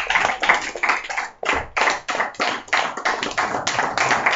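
A small audience applauding, with individual hand claps close by and uneven, and a short lull about a second and a half in.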